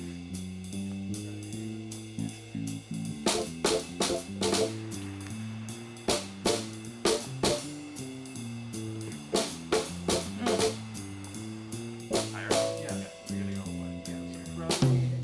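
Instrumental background music: a guitar line stepping through notes over a drum kit, with the drums hitting harder from about three seconds in.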